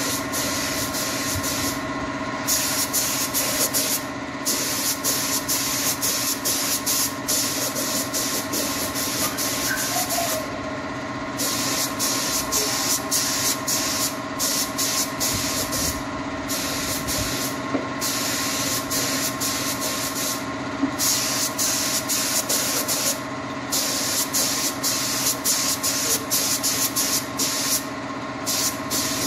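Gravity-feed air spray gun hissing as it sprays finish onto an MDF cabinet, the hiss breaking off briefly every few seconds as the trigger is released between passes. A steady machine hum runs underneath.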